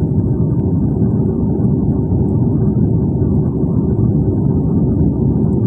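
Jet airliner cabin noise heard from a window seat over the wing: a steady low rumble of engines and airflow with a faint steady hum, unchanging throughout.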